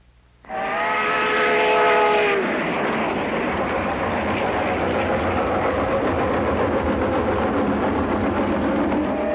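Steam locomotive whistle blowing one long steady note for about two seconds, then the steady, noisy rush of the locomotive running.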